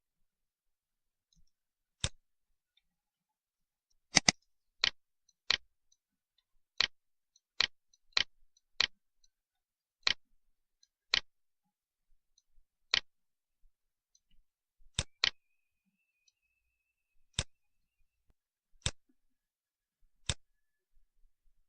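Computer mouse buttons clicking: single sharp clicks at irregular intervals, a few in quick pairs.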